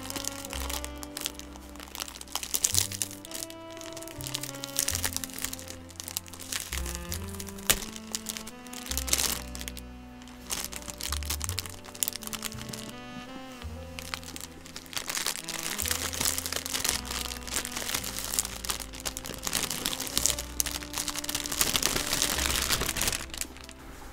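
Clear plastic shrink wrap crinkling and crackling as it is peeled off a figure box, heaviest in the second half, over background music with a slow, steady bass line.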